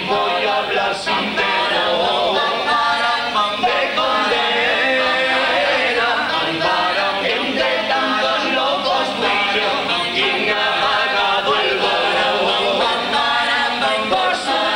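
Cádiz carnival comparsa, a male choir, singing a song in several voices in harmony.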